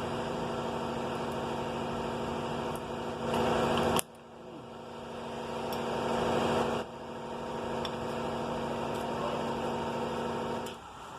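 Steady hum of a running engine or machine, with abrupt changes in level about four and seven seconds in and a drop near the end.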